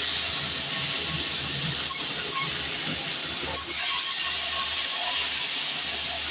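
Sawmill bandsaw cutting through a log, a steady high hissing cut noise, with a brief sharp knock about two seconds in.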